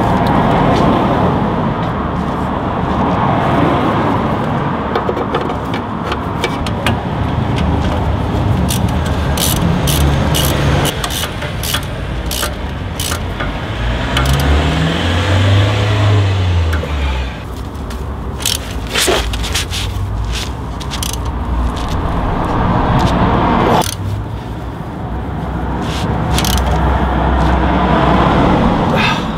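Hand tools clicking and scraping on metal at the front wheel hub, in runs of sharp clicks, over a loud steady rumble that swells and eases.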